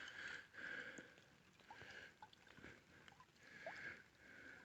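Near silence, with a few faint, soft noises of about half a second each.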